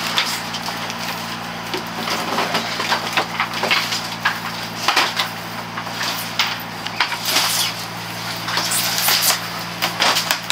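A steady low machine hum under irregular crackling and rustling from handling fish and packing material at the tubs and foil-lined fish boxes.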